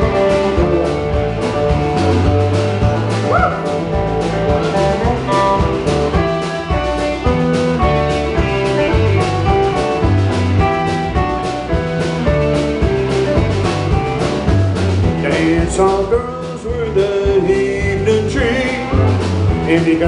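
Live band playing an instrumental break on guitars with a steady beat; the singing comes back in right at the end.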